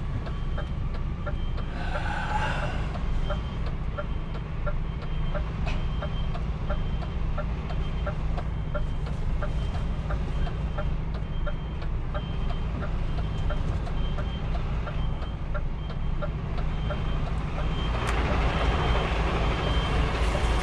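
A truck's reversing alarm beeping, a short high tone repeating evenly, over the truck's engine running low as it backs up. A louder rushing engine noise builds near the end.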